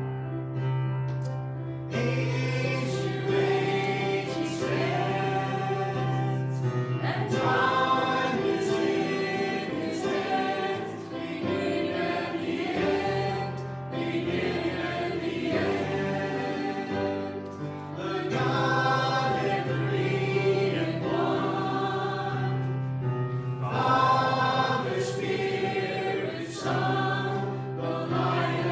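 Worship song: a group of voices singing over sustained instrumental accompaniment with a steady bass line.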